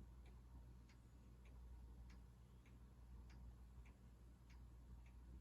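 Faint, regular ticking, about one and a half ticks a second, over a low steady hum in an otherwise near-silent room.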